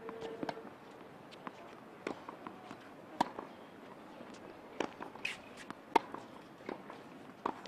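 Tennis ball struck by a racket and bouncing on a hard court during a baseline rally: sharp pops about every one to one and a half seconds.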